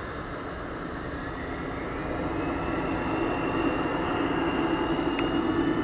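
Bombardier CRJ200 regional jet's two rear-mounted General Electric CF34 turbofans spooling up to takeoff power: a steady jet rumble that grows louder from about two seconds in, with a whine rising slowly in pitch.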